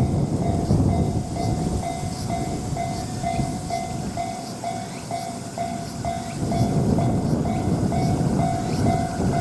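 Japanese railway level-crossing alarm ringing steadily about twice a second, over the rumble of a passing train that eases off mid-way and swells again near the end.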